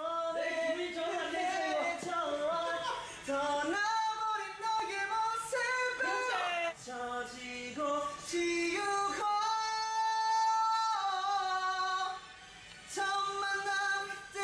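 A young man singing a Korean ballad with no accompaniment, in a high voice that steps from note to note, holding one long high note about nine seconds in, with a brief break for breath near the end.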